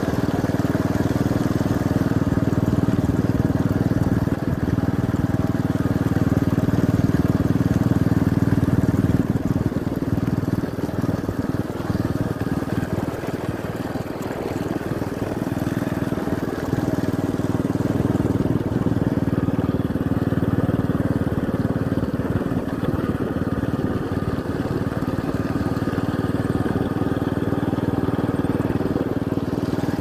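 Motorcycle engine running steadily at cruising speed, a constant low hum that dips a little in the middle and comes back up.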